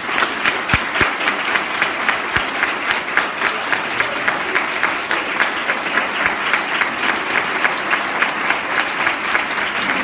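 Audience of schoolchildren and adults applauding, with one pair of hands clapping close by in a steady quick beat.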